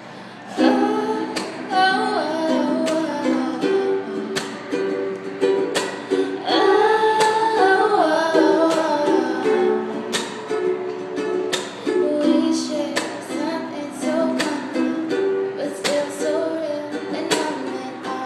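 Acoustic stringed instrument strummed in a steady rhythm, with a voice singing a melody over it.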